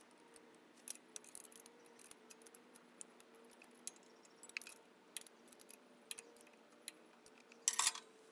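Irregular metal clinks and taps of a 1/2-inch wrench working the nut on the switching valve's steel mounting bolt as it is tightened, with a louder clatter of metal near the end.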